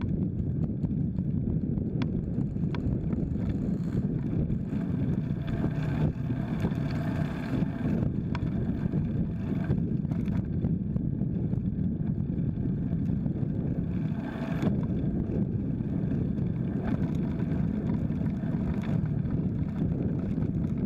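Wind noise on the microphone and road rumble from a bicycle riding on concrete, with motor traffic such as motorcycles passing, and a few short clicks or rattles.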